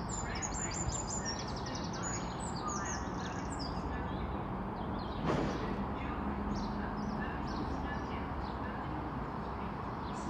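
Small birds chirping and calling in quick, high twitters, busiest in the first few seconds, over a steady low background rumble, with one short knock about five seconds in.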